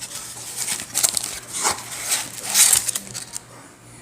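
Plastic trading-card packaging crinkling and rustling as a blaster box of card packs is opened and the foil packs handled, the sounds dying down for the last second.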